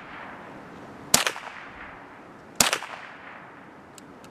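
ISSC MSR MK-22 semi-automatic .22LR rifle firing two single shots about a second and a half apart, each a sharp crack with a short ringing tail. Two faint clicks follow near the end.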